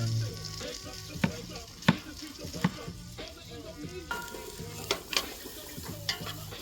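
Onion and garlic frying and sizzling in a cooking pot, stirred with a utensil that knocks sharply against the pot about six times.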